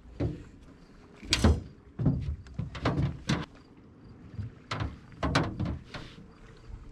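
Irregular knocks and thumps of handling on a boat deck, about a dozen, the loudest about a second and a half in.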